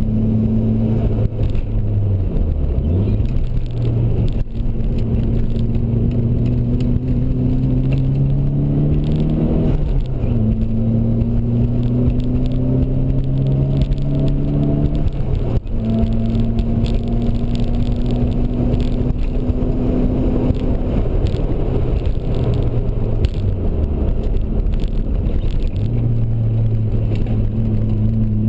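Nissan 240SX's engine heard from inside the cabin under hard driving, with road and wind noise. The revs dip and recover in the first few seconds, then climb steadily with sharp drops in pitch about 10 and 16 seconds in, as it shifts up. They ease off and sag a few seconds before the end, then pick up again.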